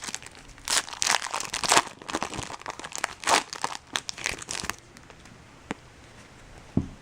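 A foil Bowman Chrome card-pack wrapper crinkling and tearing as it is opened by hand, in rapid bursts for about five seconds, then a faint click and a soft knock near the end.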